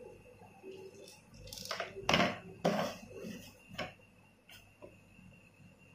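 Several light clicks and knocks, the loudest about two seconds in, as a handheld digital multimeter is handled on a wooden bench and its rotary range selector is turned.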